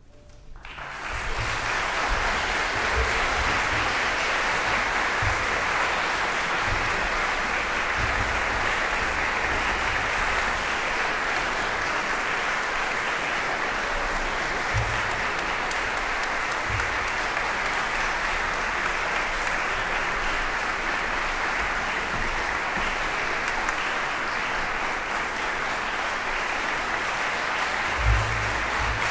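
Concert-hall audience applauding, breaking out about a second in and then holding steady and dense, with occasional low thumps and a louder one near the end.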